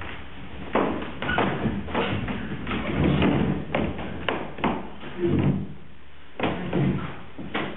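Irregular thumps and knocks, about ten of them over several seconds, from actors moving about on stage.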